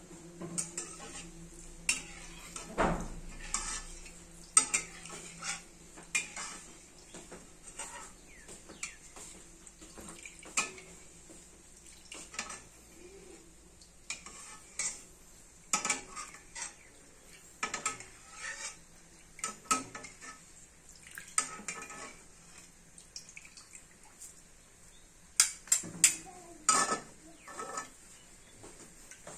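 Metal perforated skimmer clinking and scraping against a wire-mesh strainer of fried shredded potato held over a wok, pressing and tapping out the oil. The clinks are irregular, with a cluster of louder ones near the end.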